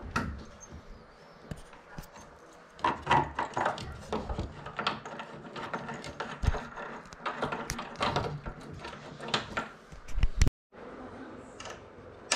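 Irregular metal clicks, scrapes and wooden knocks as bolts are fitted into a wooden crib frame and turned with an Allen key. The sound cuts out briefly about ten and a half seconds in.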